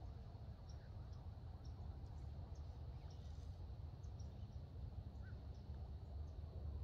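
Wind rumbling steadily on the microphone, with faint, short bird chirps scattered through.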